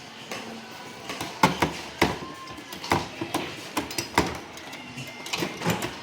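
Irregular clicks and knocks of hands and tools handling the metal and plastic parts of a desktop computer case during disassembly, several in quick succession at times.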